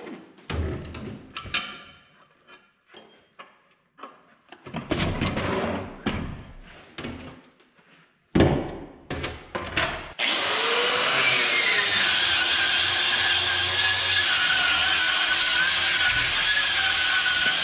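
A power tool whirring in short bursts while bolts are backed out of an excavator seat base, with metal clanks, the sharpest about eight seconds in. From about ten seconds in, an angle grinder runs steadily against a rusty steel seat plate, its pitch wavering as it takes off rust.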